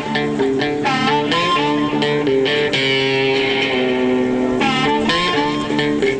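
Intro music played on guitar, with notes and chords changing in a steady rhythm and a held chord in the middle.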